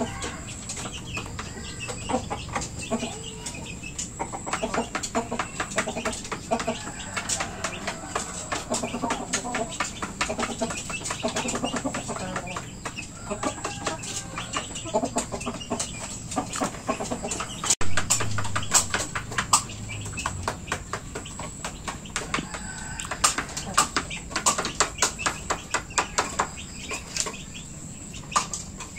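Chickens clucking softly while they peck, with many sharp ticks throughout. About eighteen seconds in there is one louder burst with a brief low rumble.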